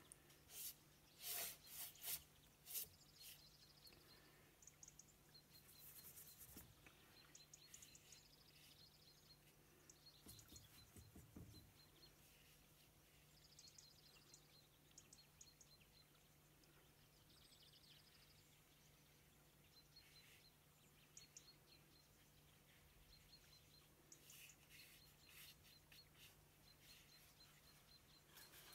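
Near silence with a faint steady hum. A few soft scrubbing strokes of a paintbrush in the watercolour palette come in the first three seconds, and faint high bird chirps come now and then.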